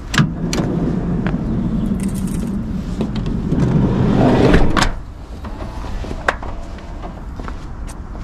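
Footsteps on dry grass, then a Toyota Hiace van's sliding side door rolling along its track and stopping with a sharp clunk about five seconds in.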